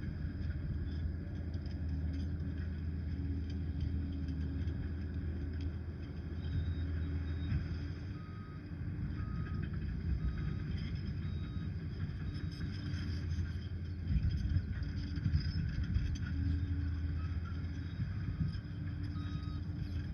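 Liebherr PR 746 crawler dozer's diesel engine running with a steady low drone. From about halfway through, a reversing alarm beeps in a regular row of short beeps as the machine backs up.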